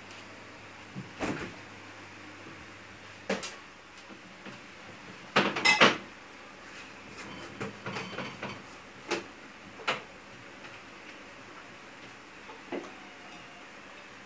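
Scattered knocks and clatters of dishes and kitchen items being handled on a countertop, with a louder clattering cluster about five and a half seconds in.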